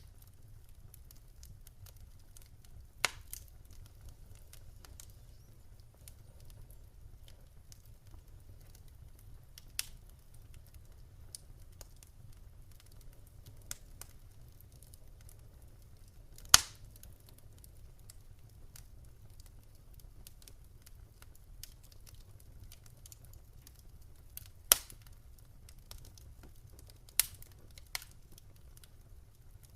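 Wood fire crackling in a fireplace: a low steady rumble of flames with irregular sharp pops, four loud ones standing out among many faint ticks.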